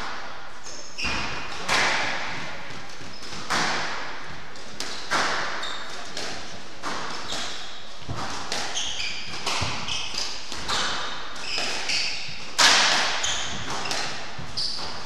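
Squash rally: the ball struck by rackets and smacking off the walls again and again, every second or two, ringing in the enclosed court, with short high squeaks of shoes on the wooden floor between the hits. One hit near the end is the loudest.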